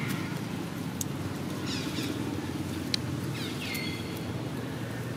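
Outdoor ambience: a steady low rumble with a few short, high chirping calls that sweep in pitch, about two and three and a half seconds in, and a couple of sharp clicks.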